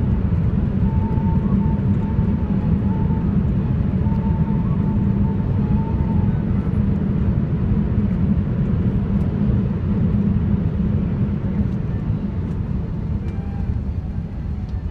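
Steady cabin rumble inside an Airbus A380 rolling along the ground just after landing, with spoilers raised. It eases slightly near the end as the plane slows.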